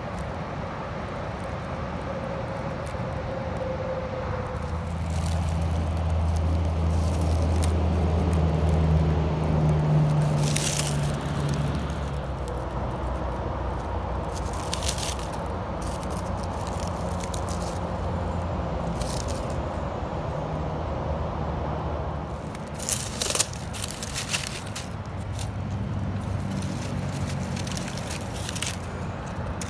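Dry leaves and twigs crackling and scraping in scattered sharp clicks as a hand works through leaf litter to pick morel mushrooms. Under it runs a low drone, loudest about a fifth to a third of the way in and again near the end.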